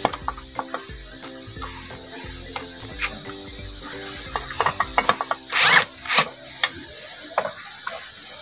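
A socket wrench and loose steel bolts clicking and clinking as cylinder head bolts are undone. The clicks are scattered at first, come thick and fast about four and a half seconds in, and are followed by a few louder metal clanks around six seconds.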